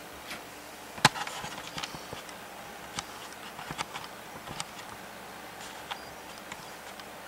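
Scattered light clicks and taps over a faint steady hum, the strongest click about a second in.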